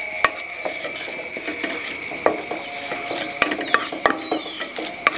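Wooden spatula stirring lemon and curry leaves in a stainless steel kadai as they are roasted, giving irregular clicks and scrapes of wood on steel. A steady high insect chirring runs behind.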